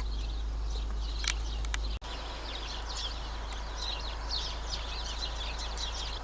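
Small birds chirping and twittering in many quick, overlapping calls, busier after about two seconds, over a steady low rumble. The sound drops out for an instant about two seconds in.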